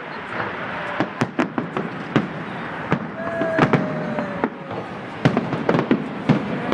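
Fireworks going off: a string of sharp bangs and cracks at uneven intervals, with a long falling whistle about three seconds in.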